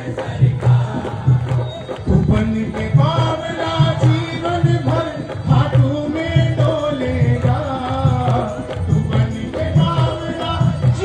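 Live devotional bhajan: a singer's voice over loud amplified music with a steady drum beat.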